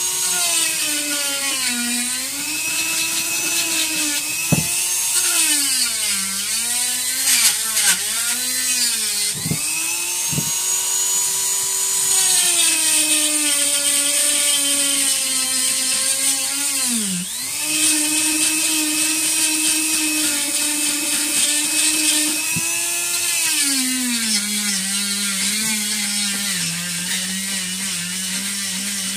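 Flex-shaft rotary carving tool running with a steady whine as its bit cuts into wood. The pitch sags and recovers as the bit is loaded, drops sharply for a moment about two-thirds of the way through, and settles lower for the last few seconds.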